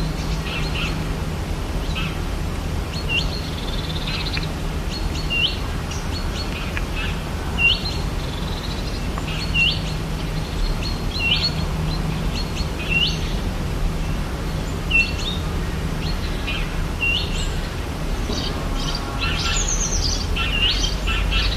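Rainforest ambience: a bird repeats a short, swooping, high call about every second or two over a steady low background rumble. Near the end, other birds join in with a busier run of chirps.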